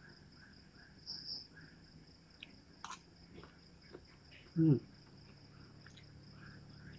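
Quiet eating: a spoon clinks once against a glass bowl, and about halfway through a short falling "mmm" comes while the food is chewed. Faint insect chirping runs steadily in the background.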